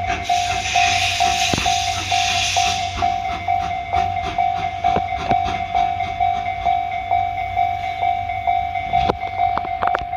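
Japanese level-crossing alarm bell ringing in a steady, even pulse while a train rolls past, its wheels clicking irregularly over rail joints, with a cluster of louder clicks near the end. For the first few seconds a hiss of steam rises over it, from the C11 1 steam locomotive.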